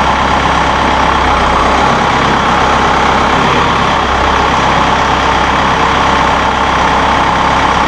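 Massey Ferguson 1760M compact tractor's diesel engine running steadily.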